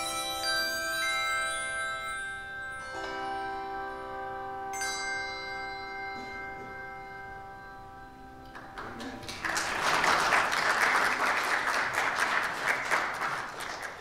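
Handbell choir ringing and sustaining the closing chords of a hymn, the chord changing about three and five seconds in as the ringing slowly fades. About nine seconds in, applause starts and is louder than the bells.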